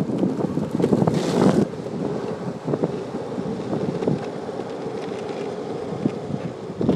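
Wind buffeting the microphone, a steady rough rushing noise, with a louder, hissier gust about a second in.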